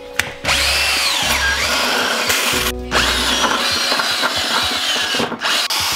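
Electric drill with a long bit boring a hole through a wooden floor, with a whine that wavers as it cuts. It starts about half a second in and stops briefly twice, once midway and once near the end.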